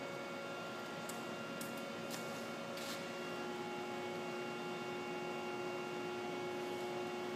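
Poreba lathe's electric drive running with a steady hum of several tones. About three seconds in, a stronger tone joins as it starts up in a newly selected speed. A few faint clicks come before that.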